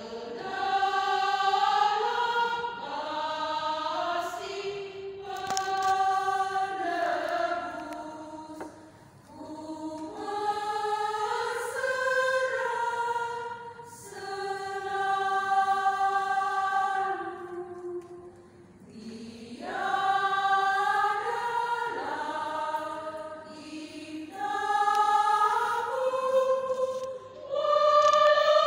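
Women's choir singing a hymn in Indonesian, in long held phrases with short breaks for breath between them.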